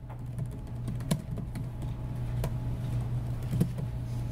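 A few scattered clicks of a computer keyboard, with a steady low hum underneath.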